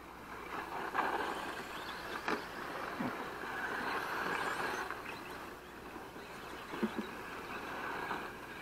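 Radio-controlled model cars running on a dirt track, their motor and tyre noise swelling and fading as they pass, with a sharp knock about two seconds in and another near seven seconds.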